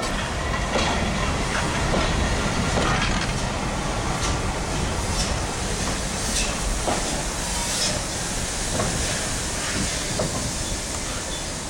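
Steam train hauled by FS locomotive 625 100 rolling slowly past at close range: wooden carriages and then the tender go by, with the wheels clicking over the rail joints and a steady hiss of steam.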